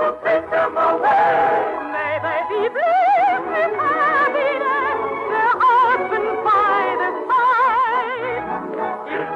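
Operetta music: a trained voice singing long, high sustained notes with wide vibrato over musical accompaniment.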